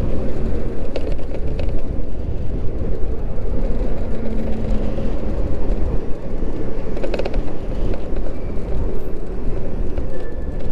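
Wind buffeting the microphone with road noise while riding an electric moped at speed: a loud, steady low rumble, with a few brief clicks about a second in and again around seven seconds.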